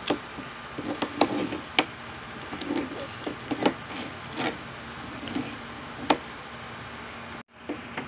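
Layers of a plastic 3x3 Rubik's cube being turned by hand: irregular sharp clicks and short scraping turns, over a steady background hiss. The sound drops out briefly near the end.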